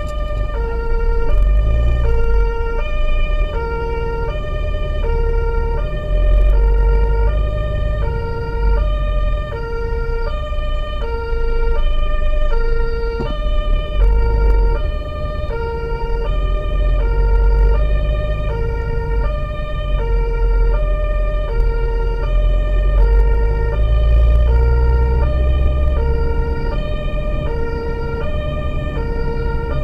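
German two-tone emergency siren (Martinshorn) sounding continuously, stepping back and forth between a lower and a higher pitch about every two-thirds of a second. It is heard from inside the vehicle's cabin over the low rumble of its engine and road noise.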